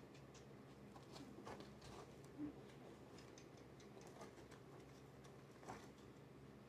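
Near silence with faint, scattered ticks and taps at irregular times, one slightly louder about two and a half seconds in.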